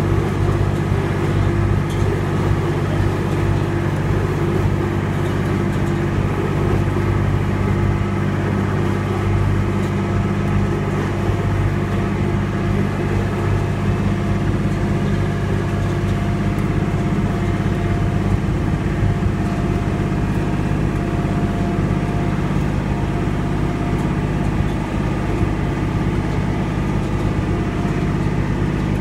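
Ride train running steadily, heard from aboard: a low, even engine drone with rolling rumble, unchanging in pitch and level.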